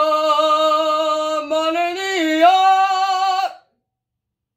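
A person's voice chanting mock ritual sounds: one long held note that wavers and steps up to a slightly higher pitch about two seconds in, then stops abruptly.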